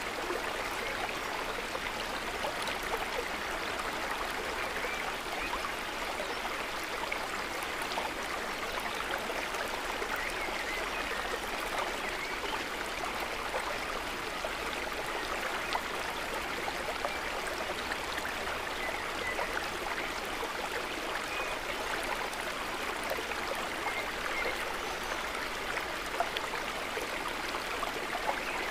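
Water gently trickling and babbling, a steady, even sound of calm lake water.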